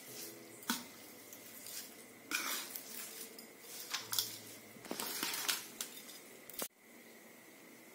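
Steel spoon scraping and clinking against a stainless steel bowl as cooked rice is mixed through from the bottom, in irregular scrapes and taps. It stops abruptly about a second before the end.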